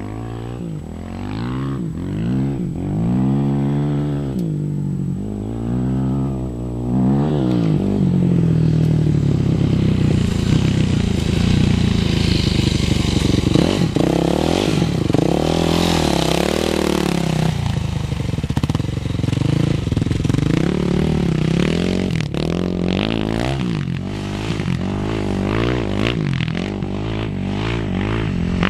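Dirt bike engine revving up and dropping back again and again as it is ridden, getting louder from about eight seconds in as the bike comes close.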